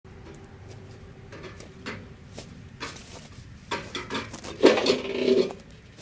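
Camping gear being lifted out of a truck bed and set down: a series of knocks and clatters of metal and wood, with a louder, briefly ringing clatter a little before the end.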